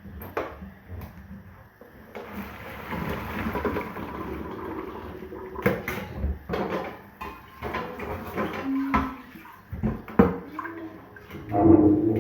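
Water being poured off from a cooking pot, a steady rush for a few seconds, followed by repeated knocks and clatters of the pot being handled.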